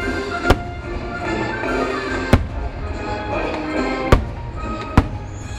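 Fireworks going off over music: four sharp bangs, about half a second, two seconds and four seconds in, the last two close together.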